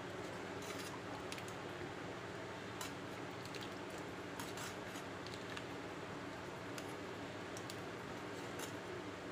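Oil heating on a nonstick tawa over a gas flame: a steady faint hiss with scattered, irregular small crackles and ticks.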